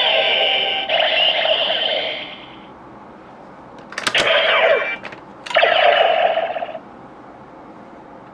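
DX Neo Decadriver toy belt's small speaker playing its electronic sound effects and voice callout, which end about two seconds in. After a short pause a click comes about four seconds in, with two more short bursts of the belt's electronic sound.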